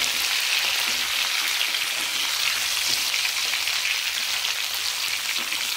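Mustard oil sizzling steadily in a stainless steel pan as fried baby potatoes and small onions are stirred together with freshly fried cumin and nigella seeds using a wooden spatula.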